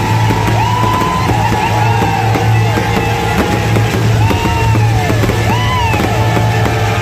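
Rock music with guitar over a steady bass beat of about two pulses a second.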